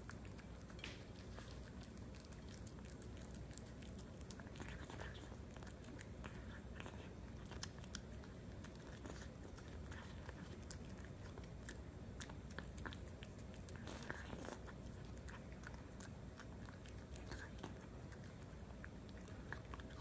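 A cat eating sardines off a plate: faint, irregular clicks of chewing and licking.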